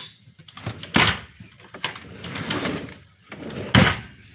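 Kitchen handling noises: a sharp knock at the start, another about a second in and the loudest near the end, with softer rustling and clatter in between as things are picked up and set down on the counter.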